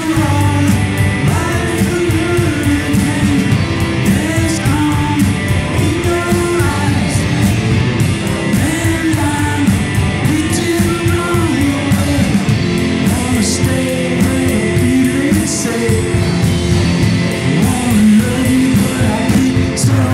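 Live rock band playing: a male lead vocal sung over electric guitars, bass guitar and drums.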